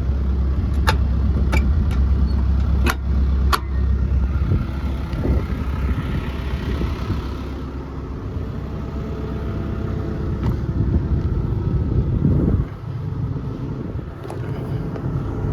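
Case CX240B excavator's Isuzu diesel engine running steadily with a deep rumble, which sounds good to the seller. A few sharp clicks come in the first few seconds.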